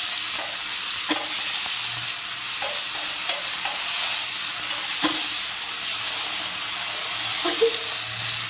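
Pork and green chili peppers sizzling steadily in a frying pan as they are stir-fried with a wooden spatula, which knocks sharply against the pan a few times.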